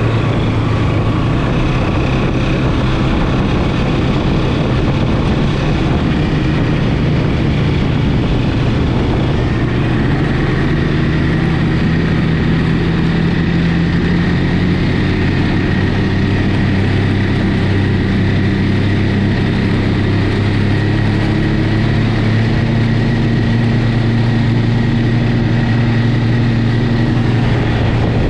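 Snowmobile engine running at a steady cruising speed while riding over snow, a constant drone with only small shifts in pitch.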